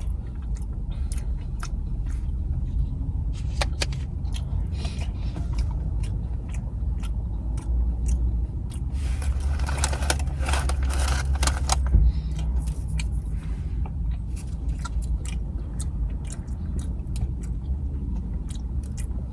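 Close-up eating sounds: a person chewing and biting food, with many small wet clicks and scrapes over a steady low rumble, and a louder, busier stretch around ten seconds in.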